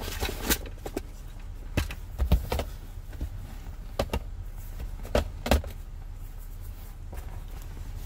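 Handling clicks and knocks from a hard plastic stitch-kit case being set down and worked beside the seat: about eight sharp knocks at irregular intervals, several in quick pairs.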